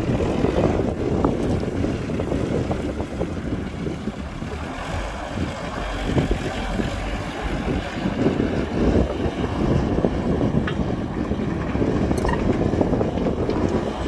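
Heavy earthmoving machinery engines running with a low, uneven rumble, mixed with wind buffeting the microphone.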